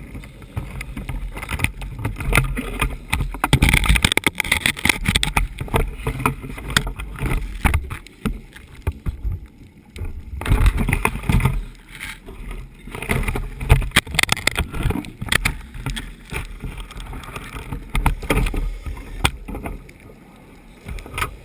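Underwater sound of a scuba diver breathing through a regulator: rushing, bubbling exhalations in loud spells every few seconds with quieter gaps between them. Scattered clicks and knocks are heard throughout.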